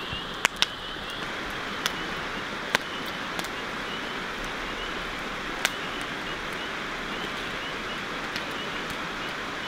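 Steady outdoor night hiss with a faint high chirp repeating evenly a few times a second, and a few sharp clicks.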